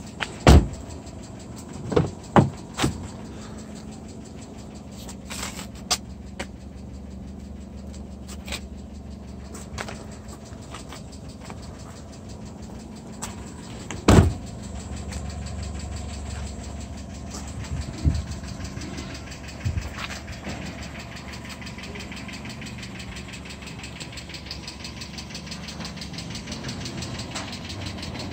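Kia Pride petrol engine idling steadily, with a car door slammed shut about half a second in and another about fourteen seconds in, the two loudest sounds. A few lighter knocks follow the first slam.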